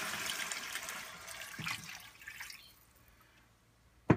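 Water poured from a glass measuring jug into a hot stainless steel pan of seared pork pieces, the pour and the pan's sizzle fading away over about two and a half seconds as the pan fills. A sharp knock right at the end.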